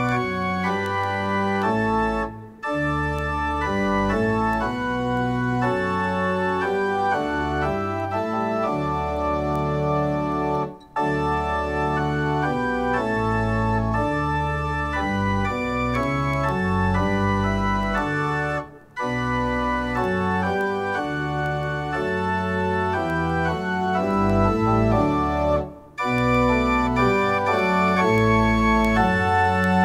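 Organ playing a psalm tune in full sustained chords, line by line, with a short break between phrases roughly every eight seconds.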